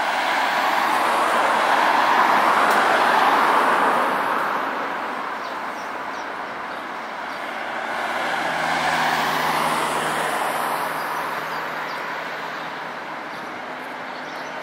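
Scania Touring coach pulling in and slowing to a stop, its engine and tyre noise loudest in the first few seconds, then idling low at the stop. Another vehicle passes on the road around the middle.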